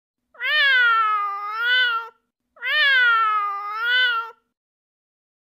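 A cat meowing twice: two long, drawn-out meows of the same shape, each about two seconds. The pitch dips, then rises again near the end.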